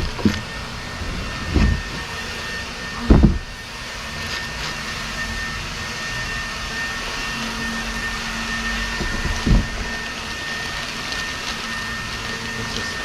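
A steady whooshing machine noise with a faint high whine, like a shop fan or blower running. A few dull thuds of parts being handled come over it, the loudest about three seconds in.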